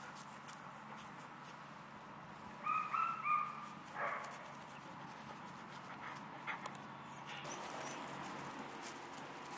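Groenendael puppy giving three short, high yelps in quick succession about three seconds in, then one more brief cry a second later.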